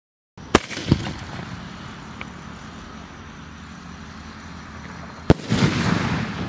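3.5-inch aerial firework shell: a sharp thump of the launch about half a second in, a second pop just after, then a loud bang about five seconds in as the shell bursts, followed by a rumbling tail that fades.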